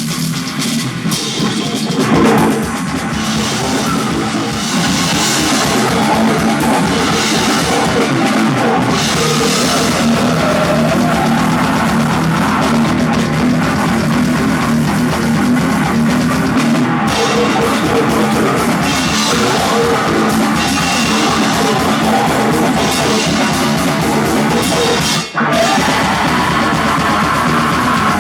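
Live heavy metal band playing loud, with drum kit and distorted electric guitars. The sound drops out for a split second about 25 seconds in.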